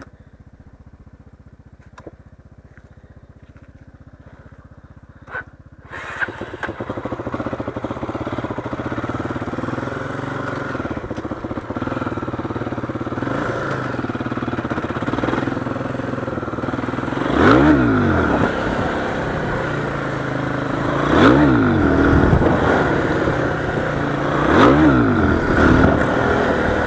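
Motorcycle engine, quiet at first, then running steadily louder under way from about six seconds in. Near the end the revs rise and fall three times.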